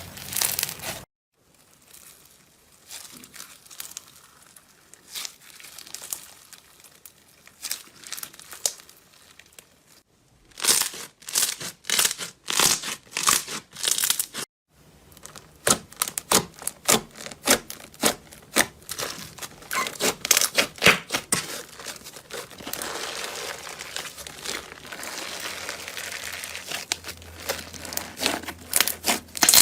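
Slime being squeezed, stretched and poked by hand, giving quick crackling, popping clicks. The sound comes in several separate clips with sudden cuts between them, including quieter stretches of softer squishing.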